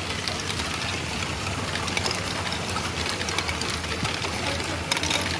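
Lego Great Ball Contraption modules running: a steady whir of small motors and gears, with many small clicks and rattles of plastic balls moving through the mechanisms.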